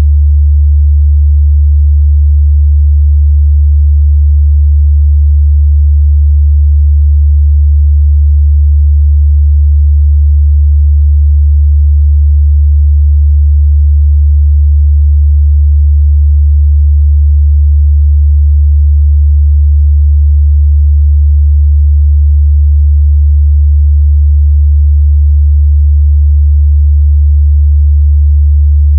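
A steady, loud 73 Hz sine-wave test tone: one unchanging deep bass hum with nothing else, used to check a speaker's or headphones' mid-bass response.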